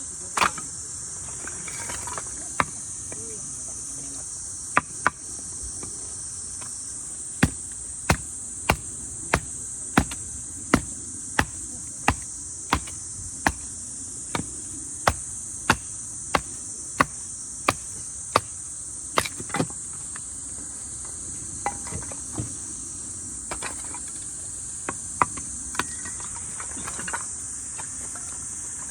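A run of about twenty sharp hammer blows, roughly three every two seconds, starting about seven seconds in and stopping around twenty, with a few scattered knocks before and after. A steady high chorus of crickets or similar insects goes on underneath.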